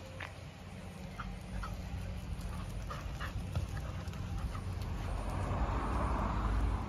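Street dogs play-wrestling, giving a few short faint whines over a steady low rumble.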